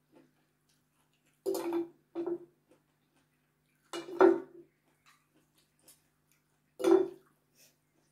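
Metal fork and spoon scraping and clinking against a white ceramic bowl of noodles in four short bursts, the loudest about four seconds in.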